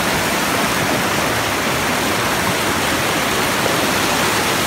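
Rain-swollen creek rushing over rocks, a steady loud churn of whitewater running high after a night of heavy rain.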